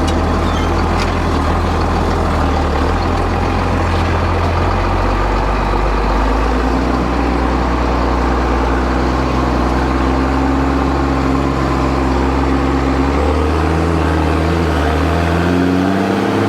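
A heavy farm vehicle's engine running steadily, heard from inside the cab, with its pitch rising near the end as it revs up.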